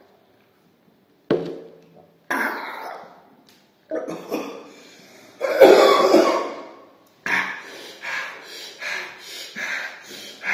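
A man coughing and clearing his throat in several separate fits, the loudest about six seconds in, then a quicker run of short coughs and breaths about two a second: his throat is burning from a meal of hot green chillies.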